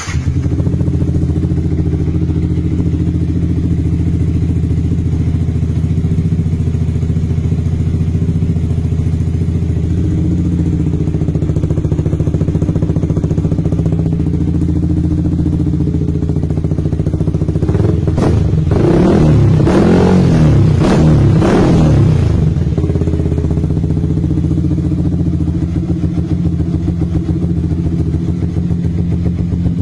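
Yamaha R15 V3's 155 cc single-cylinder engine idling steadily through an aftermarket Lone Rider exhaust, revved a few times for several seconds about two-thirds of the way through, then settling back to idle.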